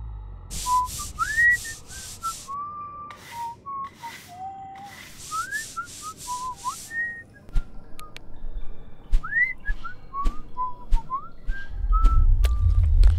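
A person whistling a cheerful, wandering tune, with quick bursts of brush scrubbing strokes in the first half and scattered clicks later. A loud low rumble comes in near the end.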